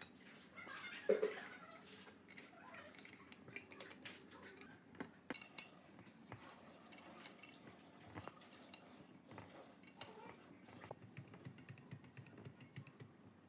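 Scattered light metallic clinks and ticks of a steel spanner working the nuts and bolts of a twin-cylinder air compressor pump during reassembly, with a sharper clink about a second in.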